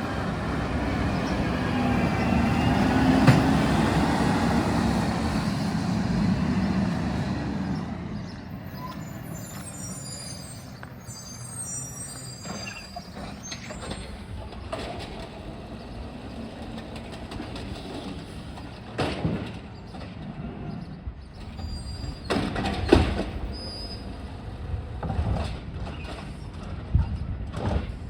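Yard waste collection truck running, loud for the first seven seconds or so and then fading as it moves off. A few sharp knocks and clanks follow later on.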